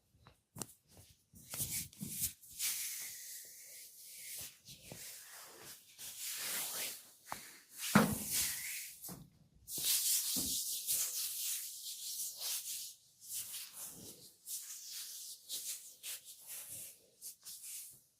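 Massage hands rubbing and kneading oiled skin, an irregular slick rubbing and hissing, with one sharp, loud slap-like thump about eight seconds in.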